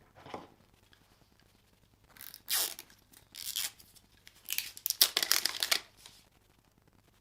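Phone retail packaging being torn open: a short rasp near the start, then three tearing strokes about two, three and a half, and four and a half seconds in, the last the longest and loudest.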